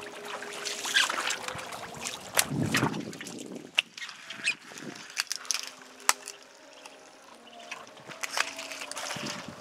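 Muscovy ducks and ducklings foraging through dry twigs and leaf litter: scattered rustles and clicks.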